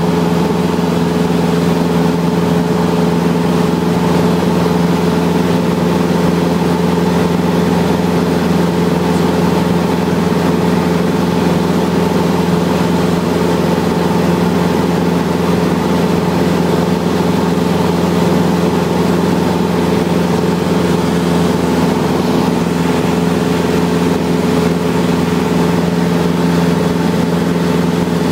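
Aircraft engine running at a steady cruise, heard from on board: a loud, unchanging drone with several steady tones over a noise floor.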